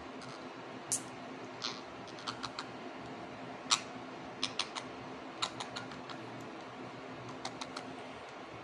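Irregular light clicks and taps, singly and in quick runs of two or three, over a steady low hum; one sharper click about halfway through is the loudest.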